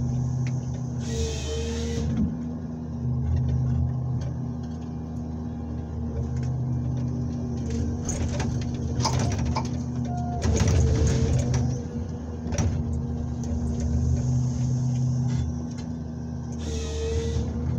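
Komatsu 901XC forest harvester heard from inside its cab: the engine runs steadily while the hydraulics work the harvester head feeding and delimbing a birch trunk. Bursts of crackling and snapping branches come about eight to thirteen seconds in.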